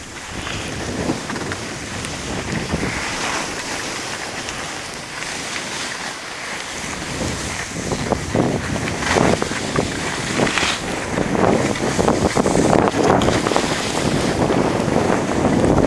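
Wind buffeting the microphone of a skier on the move, over the hiss and scrape of skis on packed snow. It grows louder from about halfway through.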